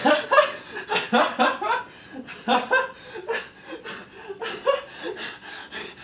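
A young man chuckling and snickering in short bursts of laughter, louder in the first second or two and softer after.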